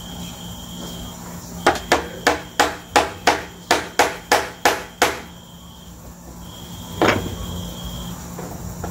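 A hammer drives a nail into a wooden table leg: a run of about eleven quick strikes, about three a second, then a pause and one more strike.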